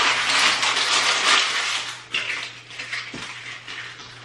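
Thin plastic packaging crinkling and rustling as it is gathered up and crumpled by hand, loudest in the first two seconds with a second flurry just after.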